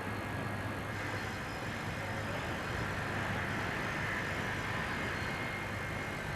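Steady mechanical noise with a low hum and hiss, like heavy machinery running, with no distinct knocks or changes.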